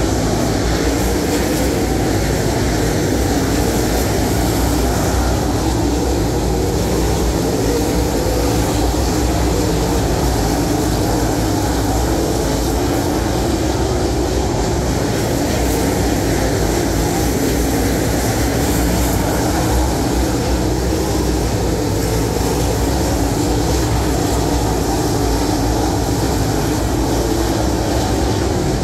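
A field of dirt late model race cars with V8 engines running at racing speed on a dirt oval. Their engines blend into one loud, continuous sound whose pitch keeps rising and falling.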